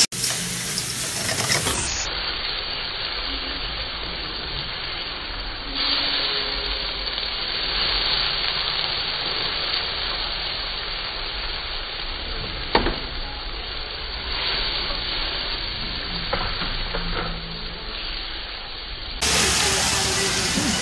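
Food sizzling and being stirred in a frying pan over a portable gas burner as the pan is flambéed. A single sharp knock comes a little past the middle.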